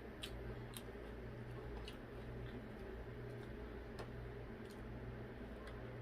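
A person chewing a sandwich with her mouth close to the microphone: faint, scattered wet clicks from the mouth, over a steady low hum.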